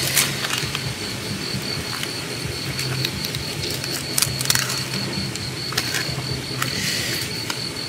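Crickets trilling steadily, with scattered light clicks and taps of hands and utensils against a plate as grilled fish is pulled apart.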